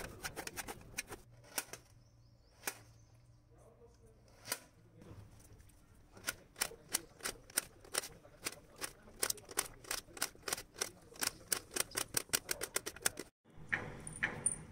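Kitchen knife cutting raw papaya on a stainless steel surface, each stroke a sharp tap of the blade on the metal. A few scattered cuts at first, then a steady run of chopping at about four to five strokes a second that stops abruptly near the end.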